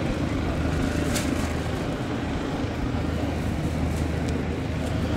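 Extra 300 aerobatic plane's piston engine and propeller running at low power as it rolls along the runway: a steady drone with a low hum.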